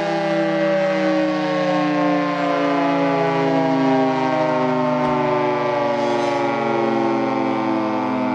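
Federal Signal 3T22 three-tone outdoor warning siren sounding its chord, loud and steady, its pitch slowly sliding down.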